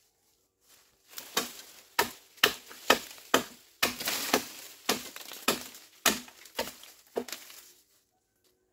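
Bamboo being chopped: about a dozen sharp strikes, roughly two a second, starting about a second in and stopping near the end.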